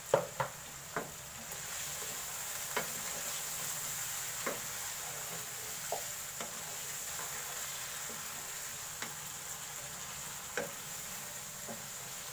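Mutton frying in oil with ground spices and salt in a nonstick karahi, with a steady sizzle. A wooden spatula stirs the meat, and it knocks and scrapes against the pan every second or two.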